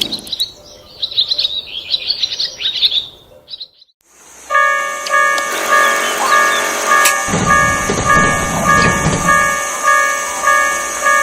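Birds chirping, then a Japanese level-crossing warning bell starts about four and a half seconds in, ringing its two-tone "kan-kan" at about two strikes a second. A low train rumble passes under the bell for a couple of seconds in the middle.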